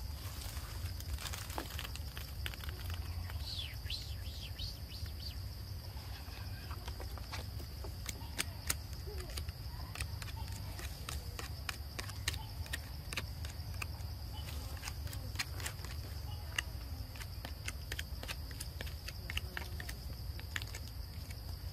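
Forest ambience: a steady high-pitched insect drone, with a few quick bird chirps about four seconds in and scattered sharp clicks through the second half, over a low rumble.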